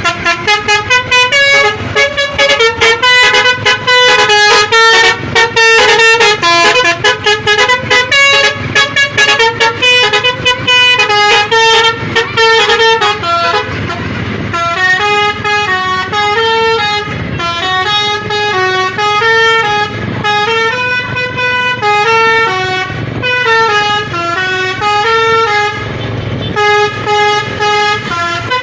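Indonesian bus 'basuri' (telolet) multi-tone air horn playing a melody. Rapid short staccato notes come first, then longer held notes stepping up and down in pitch over the second half.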